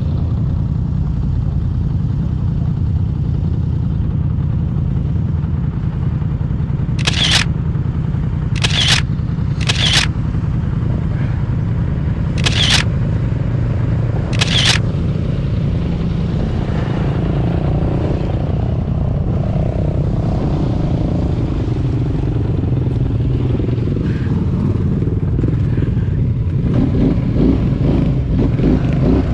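ATV engine running steadily under way, a dense low rumble, with five sharp knocks between about seven and fifteen seconds in.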